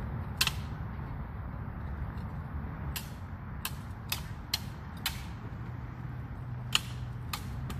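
Backsword blades clashing in a fencing bout: about eight sharp, ringing strikes, one near the start, a quick run of five in the middle and two more near the end.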